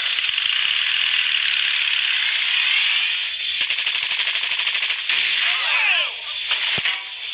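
Machine-gun sound effect: continuous rapid rattling fire, easing off near the end with a few short squealing pitch glides.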